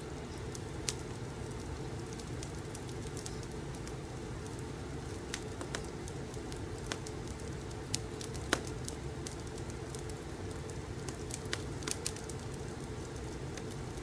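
Crackling fireplace: a steady low rumble of burning with irregular sharp pops and crackles scattered through it, the loudest about eight and a half seconds in.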